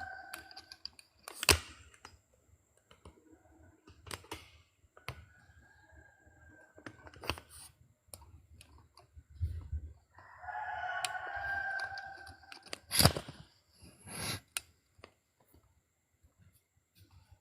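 A rooster crowing: one crow tailing off at the start, a fainter one in the middle, and a clear, longer crow about ten seconds in. Scattered sharp knocks fall between them, the loudest about a second and a half in and again about thirteen seconds in.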